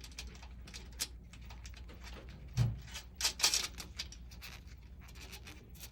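Scattered small clicks and taps of hand work on metal hardware, with a soft thump about two and a half seconds in and a louder run of clicks and scraping about a second later.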